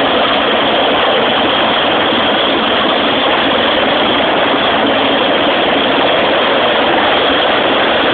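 Rescue helicopter's turbine and rotor running loud and steady as it lifts off the pad.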